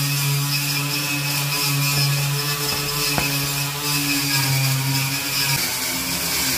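Angle grinder with a wire cup brush running steadily while scouring rust off a steel truck bed, a hum with a harsh high hiss over it. Its tone shifts about five and a half seconds in, and there is one sharp click about three seconds in.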